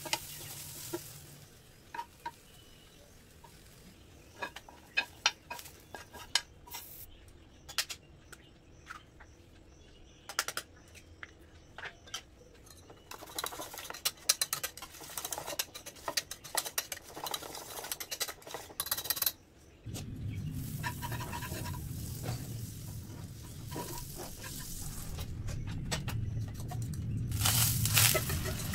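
Kitchen utensil sounds: scattered taps of a spoon or spatula on a frying pan, then a fork whisking eggs quickly against a steel bowl, a fast run of clicks. After a cut comes a steady low noise, and near the end a loud burst of sizzling as the egg mix is poured into the hot oiled pan.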